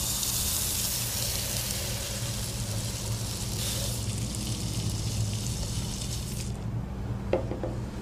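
Bird seed pouring from a plastic measuring cup through a plastic funnel into a plastic bottle: a steady hiss of small seeds streaming down, stopping about six and a half seconds in. A couple of light taps follow near the end.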